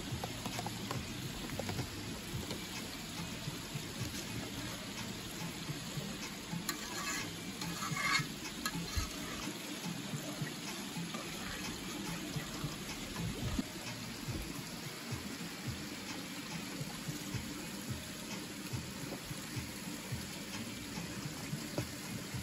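Steady rushing of running stream water, with a few light clicks and scrapes of cooking about seven to eight seconds in.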